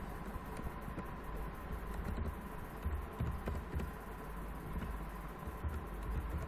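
Computer keyboard typing in scattered faint clicks over a steady low background hum and room noise.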